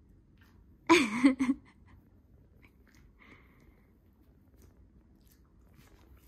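A dog crunching and chewing dry kibble, a run of faint short clicks. About a second in, a brief loud voice cuts across it.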